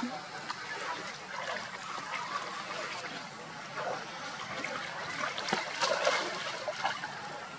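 Water splashing and trickling as young macaques move through a shallow pool, with louder splashes about six seconds in.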